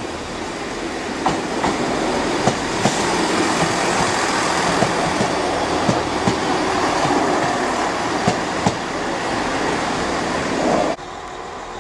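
Passenger train moving through the station: a steady rush of wheel and rail noise with irregular sharp clicks as the wheels pass over rail joints and points. It cuts off suddenly near the end.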